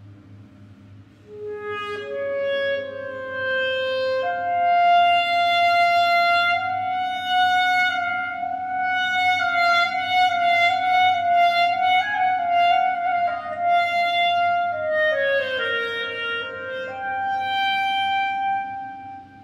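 Solo clarinet improvising slow, long notes in a pedestrian tunnel. It enters about a second and a half in, climbs through a few notes to one tone held for some ten seconds, steps down, then holds a higher note that fades out near the end. A steady low hum runs underneath.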